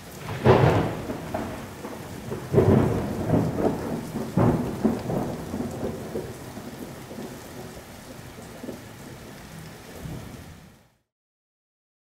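Steady rain with thunder: three loud claps with rolling rumbles about half a second, two and a half and four and a half seconds in, then rain alone until it stops near the end.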